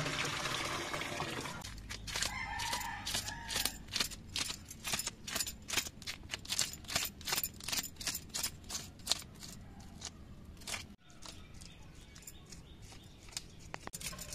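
A blade scraping scales off a large whole fish in quick, even strokes, about four or five a second, thinning out after about ten seconds. Before it, water pours briefly into a plastic bucket.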